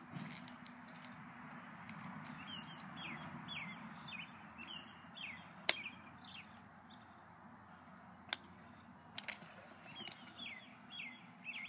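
A small bird chirping again and again in short, high, falling notes. A few sharp clicks cut in, the loudest a little before halfway, as tools work the cracked iPod touch glass loose.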